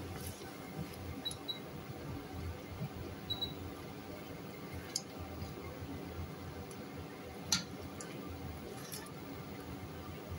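A spatula stirring thick tomato sauce in a nonstick pan: soft squelching of the sauce with a few scattered clicks of the spatula against the pan, the sharpest about seven and a half seconds in.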